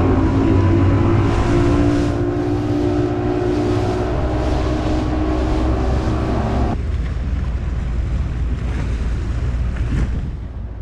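Bass boat outboard motor running at speed with a steady pitch, under heavy wind buffeting on the microphone and rushing water. About two-thirds through the engine tone cuts off suddenly, leaving only wind and water noise.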